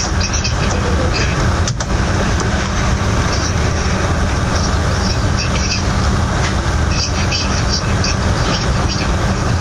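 Loud, steady rumbling noise with a hiss above it.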